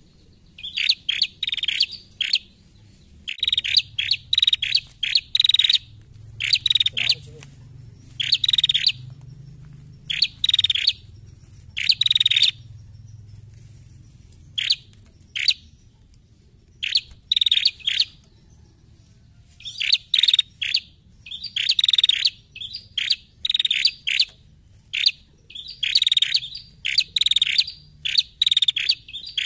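Female rufous-headed tailorbird (prenjak) calling: bursts of quick, sharp chirps, each burst under a second, repeated with short pauses between them.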